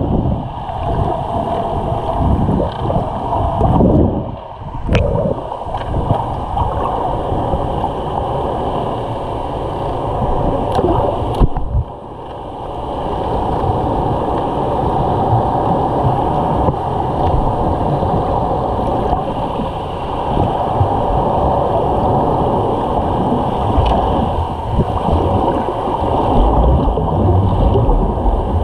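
Muffled underwater rushing and churning of water against a camera housing as snorkelers swim, with a steady hum throughout. The loudness dips briefly about twelve seconds in.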